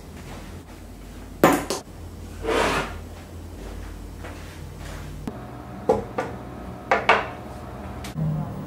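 Kitchen dishes and cutlery clattering: a loud clatter about a second and a half in, a short swish soon after, then a few lighter clinks, two pairs close together, near the end.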